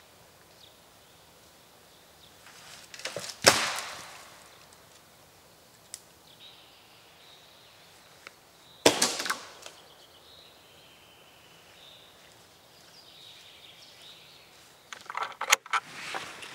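Two loud sharp cracks about five seconds apart, each with a short ringing tail, with faint bird chirps between. Near the end comes a quick run of metallic clicks and knocks as the barrel bolt on a wooden plank door is worked.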